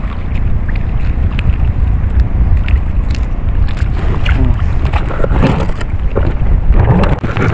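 Wind buffeting the microphone, a dense low rumble, with scattered small clicks and rustles of handling through the second half.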